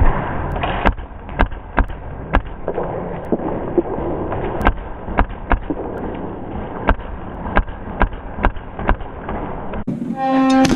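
Airsoft gunfire: irregular single sharp cracks of shots and BB impacts, about fifteen in all, over a steady background din. A short pitched tone sounds near the end.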